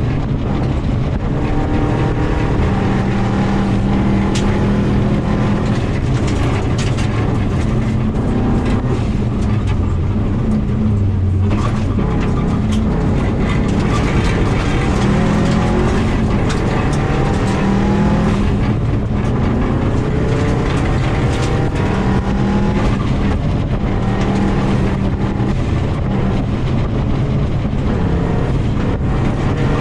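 2000 Subaru WRX's turbocharged flat-four engine at rally pace on a gravel stage, heard from inside the cabin, revving up and down repeatedly through gear changes and corners. Gravel and stones rattle and ping against the underside of the car.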